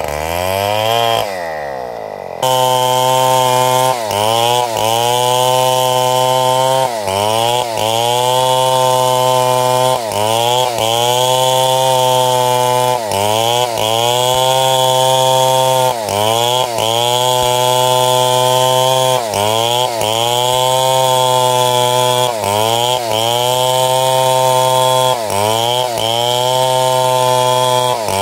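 A powered wood saw running steadily under load, its pitch dipping briefly and recovering many times, often in quick runs of two or three, as it cuts through wood.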